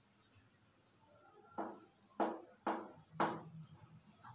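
Chalk writing on a blackboard: four sharp taps and scrapes of the chalk, about half a second apart, starting about a second and a half in.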